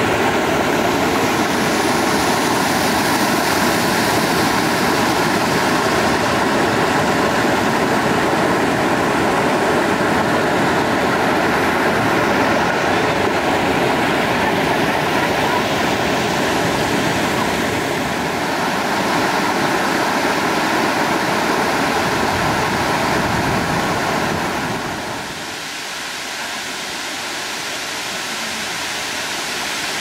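Water rushing steadily over rocks at Dudhsagar Falls. About 25 seconds in it turns a little quieter and loses most of its deep rumble.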